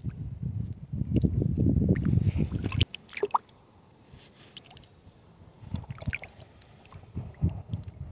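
Shallow water sloshing and gurgling around a hand holding a small dorado in the current to revive it before release. A low, rough splashing for the first three seconds stops abruptly, then small splashes and drips follow.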